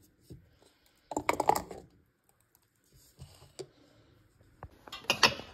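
Clicking and clattering as objects are handled: a dense burst about a second in, a few light clicks around the middle, and another sharp burst near the end.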